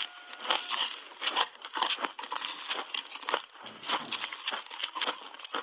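Refrozen shaved ice coated in matcha powder being crunched between the teeth in big bites: irregular, sharp, crisp crunches, a few strong ones a second with smaller crackles between.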